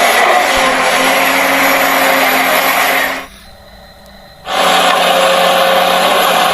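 Small electric motors and plastic gearboxes of a toy RC excavator running with a steady whine, stopping for about a second midway and then starting again.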